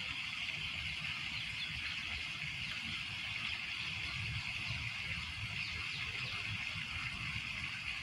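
Steady lake ambience of small waves lapping at the water's edge, heard as a continuous even hiss over a low, fluttering rumble, with no separate splashes standing out.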